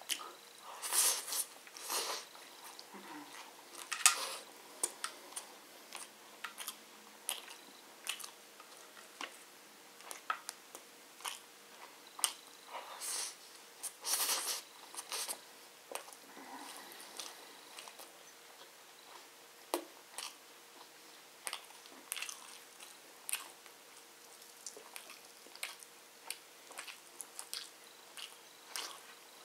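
A person eating biryani rice by hand close to the microphone: chewing with wet mouth clicks and lip smacks, with louder clusters of chewing about a second in, around four seconds and again around 13 to 15 seconds.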